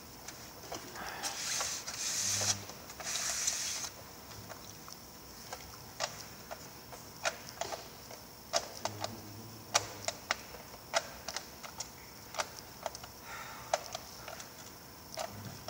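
Light, irregular clicks and taps of small parts and black plastic trays being handled by hand, roughly one or two a second through the second half, after a couple of seconds of rustling in the first few seconds.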